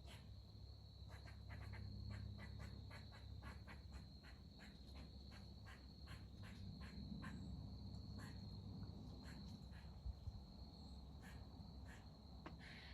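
Faint insect chorus: a steady high drone under short chirps, about two or three a second at first, then sparser.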